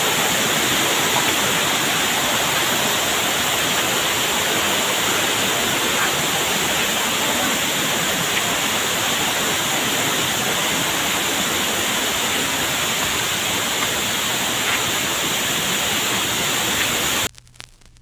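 Waterfall: a steady, even rush of falling water that cuts off suddenly near the end.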